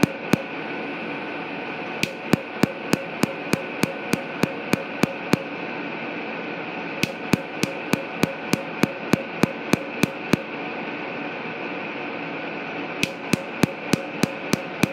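Tattoo-removal laser firing pulses into the skin: sharp clicks about three a second, in runs of a few seconds with short pauses as the handpiece is moved over the ink. A steady hum runs underneath.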